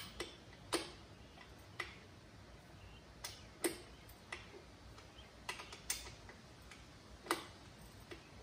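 A wrench turning the dirt bike's chain adjuster bolt: about a dozen sharp metal clicks at uneven intervals, roughly one or two a second, as the rear axle is drawn back to tighten the slack chain.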